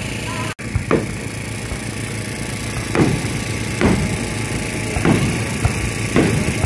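Fireworks shells bursting overhead: about six dull booms at uneven intervals, each trailing off in an echo, over a steady low background rumble.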